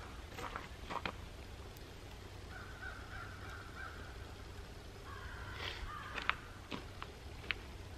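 Wood fire burning faintly, with a few sharp pops and crackles, under a faint steady high note that comes and goes.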